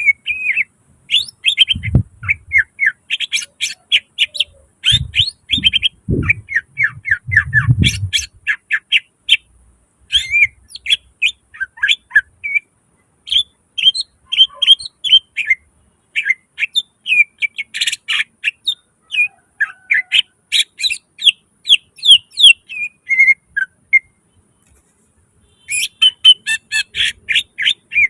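Cucak ijo (greater green leafbird) singing loudly in rapid strings of short, sharp chirping notes with brief breaks between phrases. The song pauses for about two seconds near the end, and a few low thuds sound in the first third.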